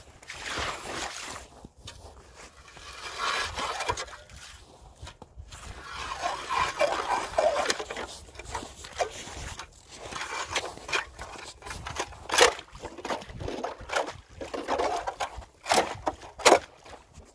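Hand ice auger's steel blades scraping and grinding into wet ice, with slush sloshing in the hole, in uneven bouts as it is turned. Several sharp knocks come in the last few seconds.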